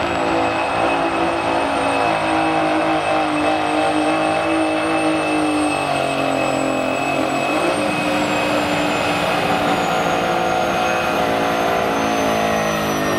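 Semi truck's diesel engine running hard under full load while pulling a weight-transfer sled, a steady loud drone with a thin high whistle above it. Its pitch wavers briefly about seven seconds in.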